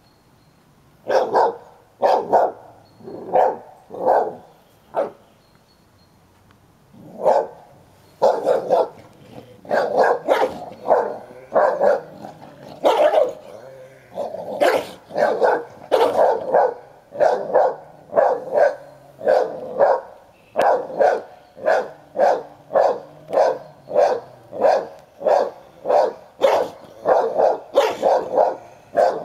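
A dog barking over and over in rough play with another dog over a toy: quiet for about a second, five barks, a short pause, then a steady run of barks at more than one a second.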